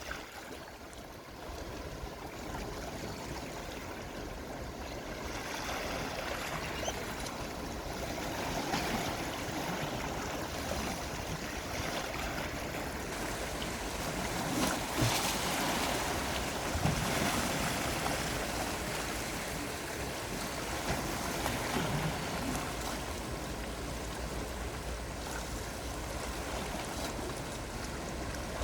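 Gentle sea waves washing in, a steady hiss of water that slowly swells, is loudest about halfway through, then eases.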